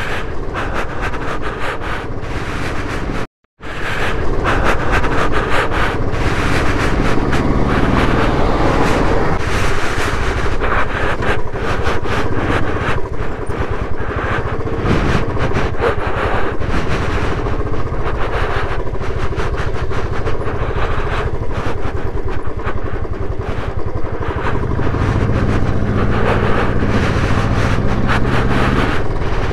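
Motorcycle engine running under the rider, mixed with rough road noise as the bike rides slowly over a broken, muddy dirt track. The sound cuts out for a moment about three seconds in. Near the end the engine settles into a steadier low note.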